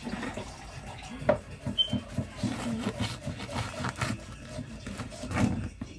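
Kitchen knife sawing through the baked crust of a round coconut pat bake: a run of irregular scrapes and knocks, with a sharper knock about a second in and another near the end.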